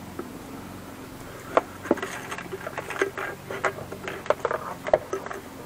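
Irregular clicks and knocks of hard plastic parts of a frame-pool filter pump being handled and pulled apart, starting about one and a half seconds in, over a faint steady hum.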